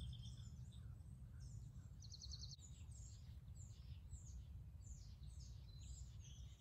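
Faint outdoor ambience: a steady low rumble with quiet high chirps repeating about twice a second and a short buzzy trill about two seconds in, from small animals calling.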